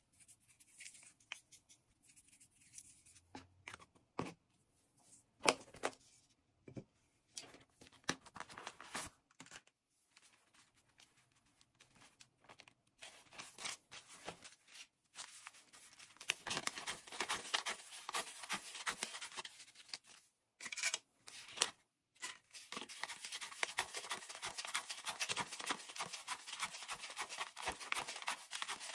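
Paper banknotes handled and counted by hand. Scattered taps and rustles come in the first half. About halfway through this turns into a dense, crisp, continuous rustle and flicking as a stack of bills is thumbed and fanned through.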